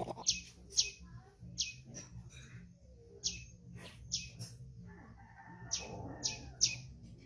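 A run of short, high-pitched animal chirps, about a dozen at irregular intervals, over a low steady hum.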